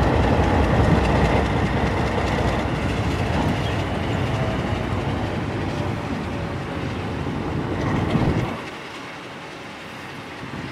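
New York & Lake Erie Railroad train with FPA diesel locomotives rolling along the track, wheels clattering over the rail joints. The noise eases gradually, then drops off sharply about eight and a half seconds in.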